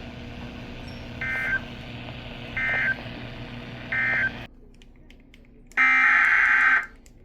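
Emergency Alert System SAME data bursts: three short buzzy digital squawks about 1.4 s apart over a steady hum, the end-of-message signal closing the weather radio's alert. The feed then cuts to quiet, and near the end a louder, second-long SAME header burst begins the next relay of the alert.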